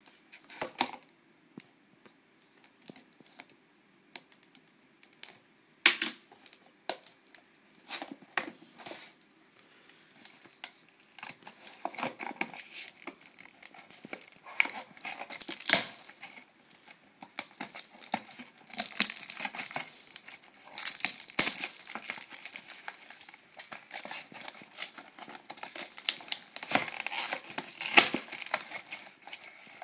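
Small cardboard blind box handled and torn open, with scattered taps and rips. From about a third of the way in, a thin plastic bag crinkles and rustles almost without pause as the vinyl figure inside is unwrapped.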